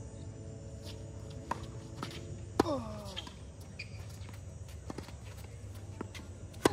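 Tennis rally on a hard court: sharp pops of racquet strings striking the ball and ball bounces, the loudest a close hit about two and a half seconds in and another right at the end. Each close hit is followed by a brief sound falling in pitch.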